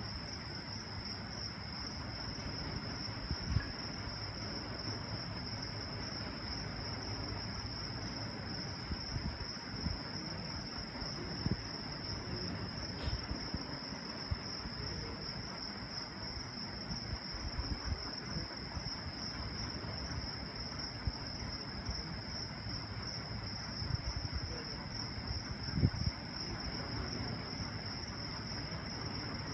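Steady, high-pitched chirping chorus of night insects that never lets up, over a faint low rumble with a few soft knocks.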